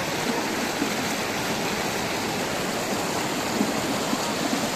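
Fast mountain river rushing and splashing over rocks: a steady, even rush of water.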